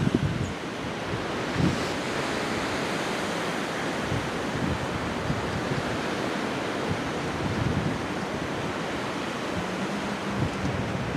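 Strong wind blowing as a steady rush, with low gusts buffeting the microphone, most at the very start.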